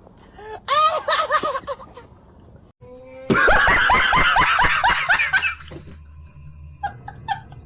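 Laughter sound effect: a short snickering laugh about a second in, then, after a pause, a louder burst of rapid laughter lasting about two seconds.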